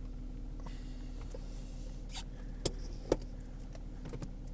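The diesel engine of a BMW running steadily, heard from inside the cabin as an even low hum. Two sharp clicks come about half a second apart a little past the middle.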